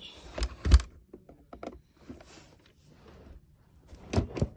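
Hard plastic clacks and knocks from handling a Nerf blaster: two loud knocks under a second in, a few lighter clicks, then two more knocks near the end.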